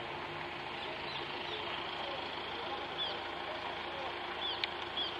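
Steady background noise with indistinct voices, and a few short high chirps from about the middle on.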